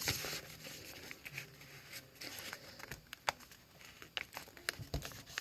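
A sheet of paper being folded and creased by hand: soft rustling with scattered sharp crinkles and taps.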